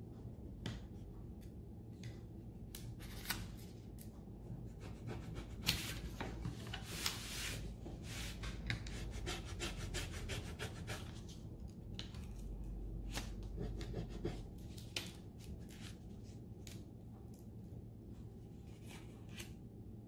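A small flat applicator scraped and rubbed over a rub-on transfer on an MDF frame, burnishing it down: many short, faint scratchy strokes, thicker through the middle of the stretch.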